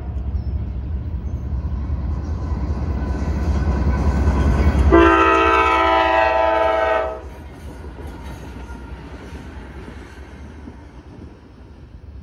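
Norfolk Southern diesel locomotive approaching with a low rumble that grows louder. About five seconds in it sounds its horn in one blast of about two seconds, the loudest moment. Then the quieter rolling of the train's cars over the rails carries on.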